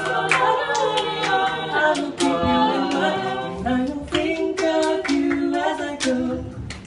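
Small vocal group singing a cappella in close harmony, holding and shifting chords, over a steady beat of sharp percussive clicks.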